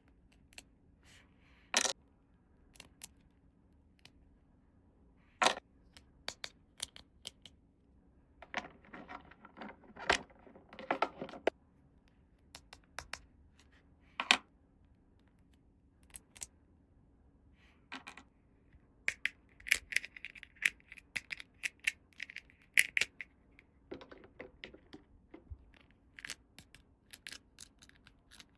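Small plastic toy pieces being handled: scattered sharp clicks and taps, with two stretches of rustling and scraping, about a third of the way in and again past the middle.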